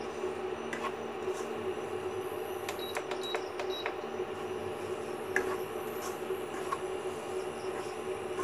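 Metal ladle clicking and scraping against a kadai as ground dal is stirred into hot spiced oil, over the steady hum of an induction cooktop.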